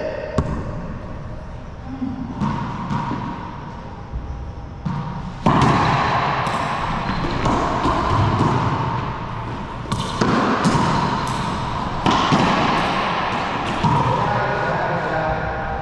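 Racquetball rally: the rubber ball smacks off the racquets and the court walls in a run of sharp impacts, each echoing in the enclosed court. The hitting becomes steadier and louder about five seconds in.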